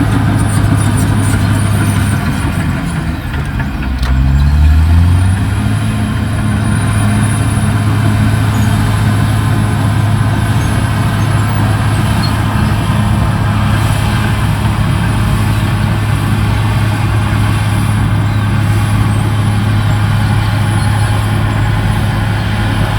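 CAT D6R XL bulldozer's diesel engine running steadily under load. About three seconds in the engine note sags, then revs back up and holds steady.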